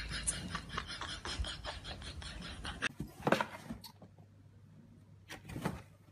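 A grey cat pawing at a cardboard box flap: short bouts of cardboard scraping and rustling. Before that, a rapid crackling patter of ticks.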